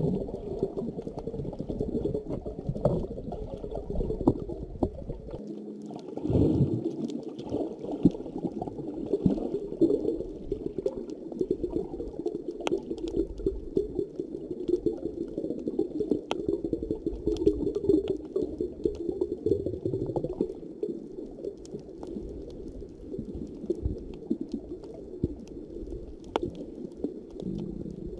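Muffled underwater sound picked up inside a waterproof camera housing: a continuous low gurgling rumble with a few sharp clicks scattered through it, with a diver digging by hand in the seabed sand.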